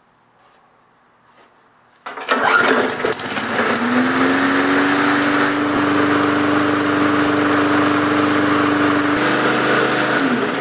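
Briggs & Stratton 3.5 hp single-cylinder lawnmower engine starts about two seconds in, revs up and runs steadily at just under 3,000 rpm, a little slower than it should be set. Near the end it winds down.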